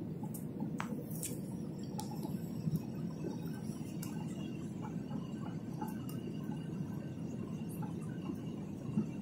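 Airliner cabin noise on final approach: a steady low rumble of engines and airflow, with a few light clicks in the first couple of seconds and a faint high steady tone coming in a few seconds in.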